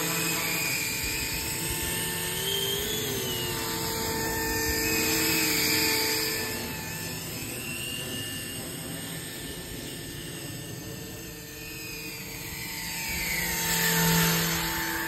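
Flish RC EC135 450-size electric RC helicopter in low flight: the whine of its electric motor, main rotor and enclosed Fenestron-style tail fan, the pitch wavering with throttle. It fades as the helicopter flies off down the strip and swells loud as it passes close near the end.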